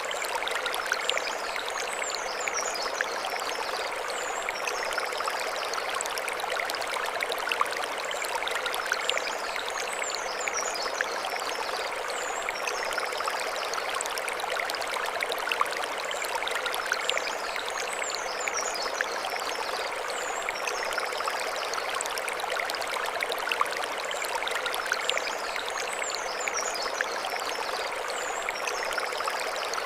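Mountain stream rushing and splashing steadily over stones. A bird sings a short, high, falling phrase that comes back about every eight seconds.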